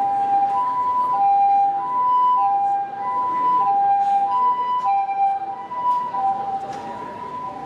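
Two-tone hi-lo emergency-vehicle siren sound effect, like an ambulance, alternating between a higher and a lower note about every half second. It fades out over the last couple of seconds.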